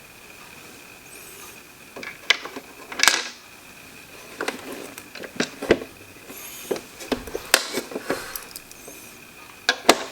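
Plastic humidifier housing parts clicking and knocking as the cover is handled and fitted back on, a series of sharp clicks and short rattles starting about two seconds in.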